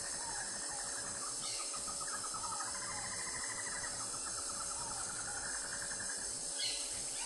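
Insects buzzing and trilling steadily in a dense chorus, with a bird repeating short falling call notes about once a second.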